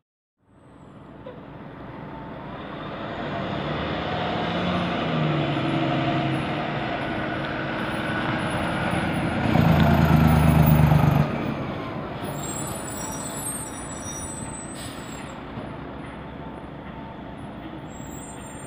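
Fire engine's diesel engine driving past, growing louder to a harsh peak of about a second and a half near the middle, which cuts off abruptly, then fading as the truck pulls away.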